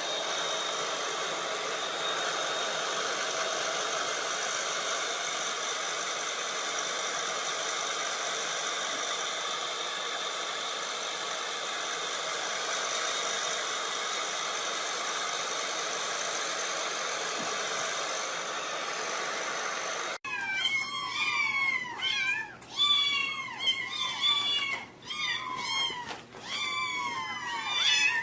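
A steady noisy hum fills the first two-thirds. Then it cuts off suddenly and kittens start mewing: many short, high calls that fall in pitch, in quick succession.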